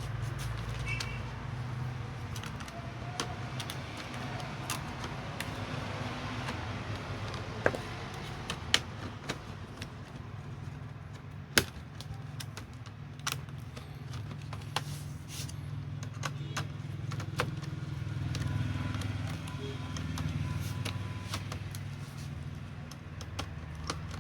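Scattered sharp clicks and taps of small hard parts being handled, over a steady low hum.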